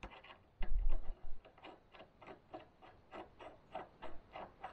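Hand socket ratchet clicking in an even rhythm, about four clicks a second, as a nut on the new trailer axle is worked. A brief low rumble comes just before one second in.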